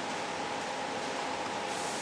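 Steady, even background hiss with a faint steady tone in it, and no distinct event.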